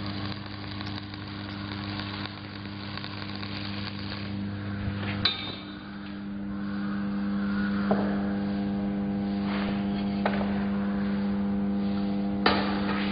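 Shielded metal arc (stick) welding: the arc burns with a dense steady hiss over the welding machine's electrical hum, and stops about five seconds in. After that the machine's hum goes on, with a few sharp metallic knocks.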